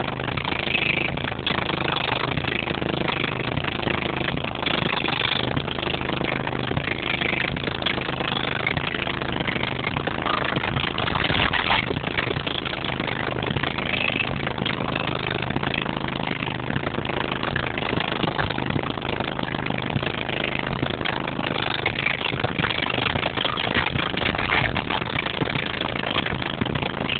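Car audio subwoofers playing a loud, steady low bass drone inside the car, with a harsh noisy haze over it.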